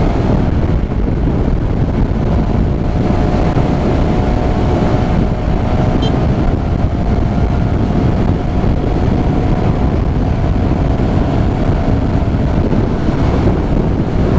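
Honda GTR 150 motorcycle's single-cylinder engine running at a steady cruising speed, under heavy wind buffeting on the microphone while riding.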